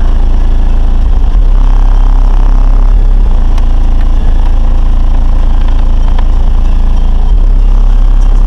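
Car-audio subwoofers in a small pickup playing very loud, deep bass that holds steady low notes, shifting a few times.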